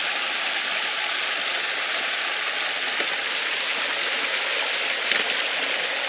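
Small waterfall pouring into its pool: a steady splashing rush of falling water.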